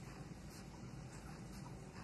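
Quiet room tone: a low, steady background hiss with no distinct sound standing out.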